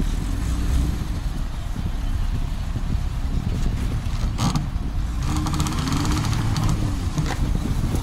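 A car engine running, with wind buffeting the microphone.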